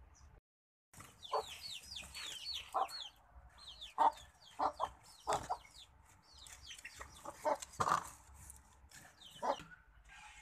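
Chickens calling: quick runs of short, high, falling peeps mixed with louder short clucks, starting about a second in.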